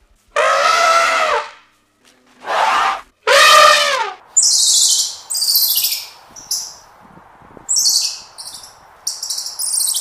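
African elephants calling: three loud trumpet-like calls in the first four seconds, each arching up and down in pitch. From about four seconds in, a red squirrel's high-pitched chattering comes in short bursts over a faint hiss.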